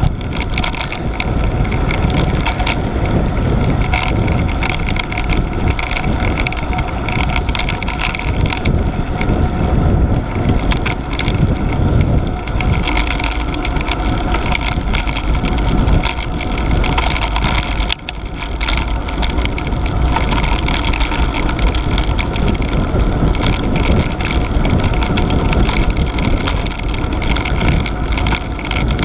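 Steady rush of wind buffeting the microphone of a camera on a moving road bike, mixed with tyre noise on tarmac, easing briefly past the middle.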